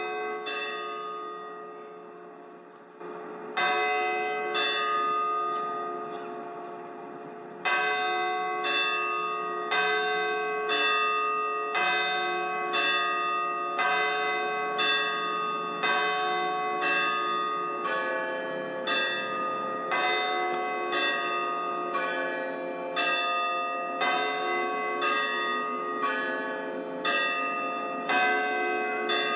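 Church bells ringing, several tuned bells struck in turn. The first strike rings and dies away. After a pause the bells strike steadily about once a second, each note ringing on under the next.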